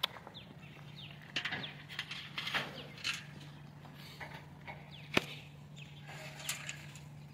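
Yard ambience: small birds chirping in short falling notes over a steady low hum, with scattered rustles and sharp clicks, one louder click about five seconds in.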